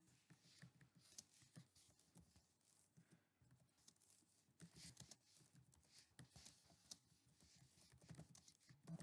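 Faint typing on a computer keyboard: irregular key clicks, several a second.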